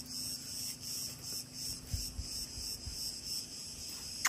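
Steady high-pitched buzzing of an insect chorus, with a faint even pulsing. A faint low hum and a soft thud about two seconds in lie beneath it.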